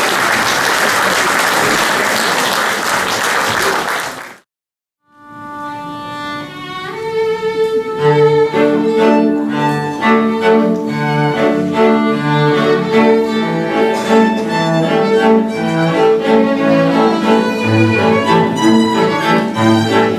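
Audience applauding for about four seconds, then, after a sudden cut, a string trio starts to play: a few long held notes at first, then a fuller, moving passage with a low line underneath.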